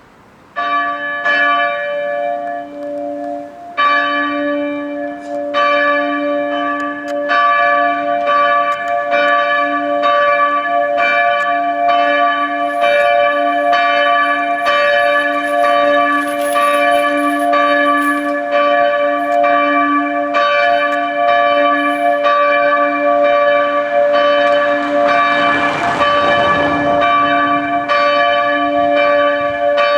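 Church bells starting the noon ringing: the peal begins about half a second in, fills out with more strikes within the first few seconds, and then rings on steadily. A brief rush of noise swells under the bells near the end.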